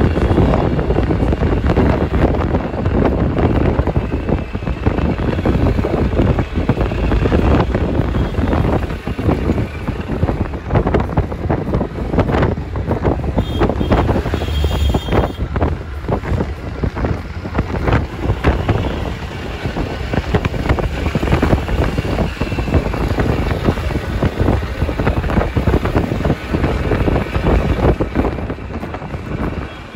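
Wind buffeting the microphone while riding on a moving two-wheeler, mixed with engine, tyre and passing traffic noise.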